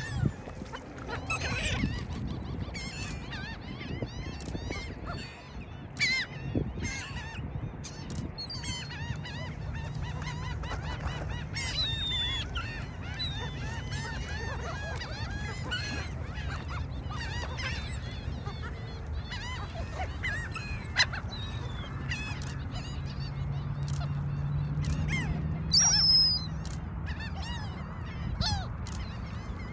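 A flock of gulls calling, many short, overlapping cries throughout, over a steady low rumble.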